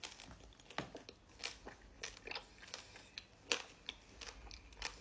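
Close-up chewing of sour lavashak fruit leather with dried pomegranate seeds: faint, irregular crunches and wet mouth clicks, the sharpest about three and a half seconds in.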